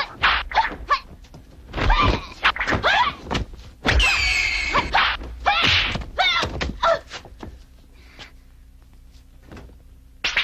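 Dubbed film fight sound effects: a quick run of punches and thuds mixed with shouted cries, dropping to a quieter stretch for the last couple of seconds.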